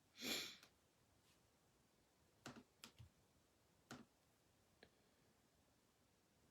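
A short hiss at the very start, then a few faint, sharp clicks scattered over a couple of seconds against near silence.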